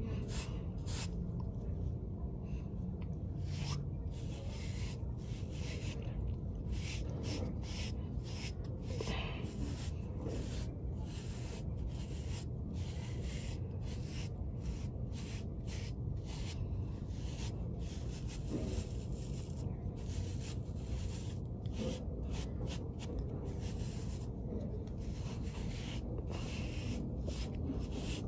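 Bristle brush stroked repeatedly over short hair, a run of short scratchy swishes coming about once or twice a second.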